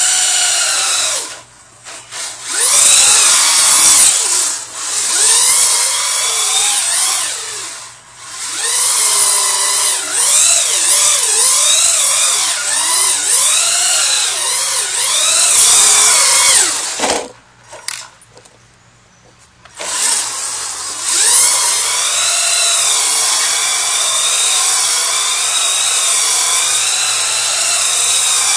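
Duratrax Evader RC truck's electric motor whining, its pitch rising and falling as the truck spins donuts through standing water. The whine cuts out briefly a few times, once for about two seconds about two-thirds of the way in.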